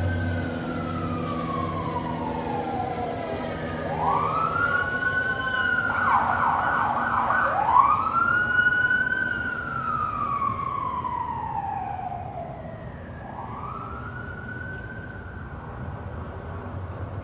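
Police car siren wailing in slow rising and falling sweeps, switching briefly to a fast yelp about six seconds in. It grows louder toward the middle and then fades as it passes.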